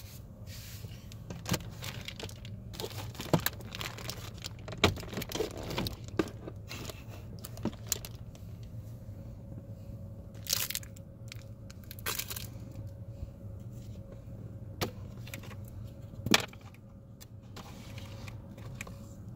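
Plastic clicks, knocks and rattles of a car's glove box being opened and dropped down and its cabin air filter cover unclipped, with short crinkling rustles of a snack bag being moved about halfway through, over a steady low hum.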